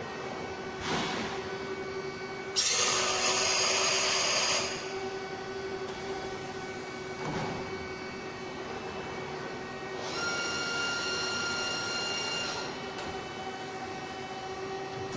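Large CNC double-column machining center running under power with a steady hum. A loud hiss lasting about two seconds comes a few seconds in, and a higher whine rises over the hum for about two and a half seconds later on.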